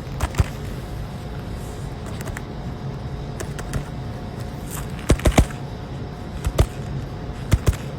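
A steady mechanical hum from running equipment, with scattered sharp clicks and knocks: two near the start, a quick cluster about five seconds in, and a few more near the end.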